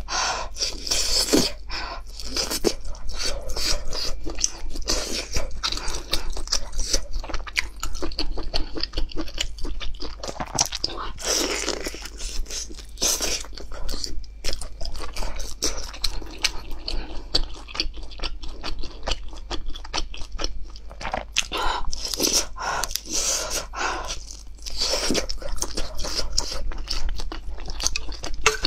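Close-miked crunchy chewing and biting: a person eating a fried chicken-leg roll and a stuffed flatbread, with many quick irregular crunches throughout.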